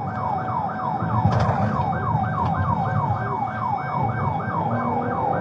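Police car siren on a fast yelp, sweeping rapidly about four times a second, over the low rumble of the car driving hard.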